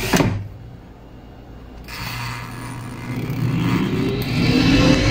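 Electric air fryer switched on to preheat. After a brief scrape at the start, its fan starts about two seconds in with a steady rushing noise and a whine that rises in pitch as the motor spins up.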